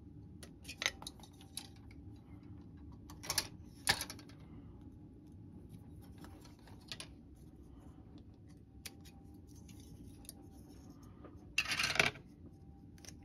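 Scattered sharp clicks and taps of small plastic model-kit parts and hand tools being handled on a workbench, with a brief louder rustle near the end.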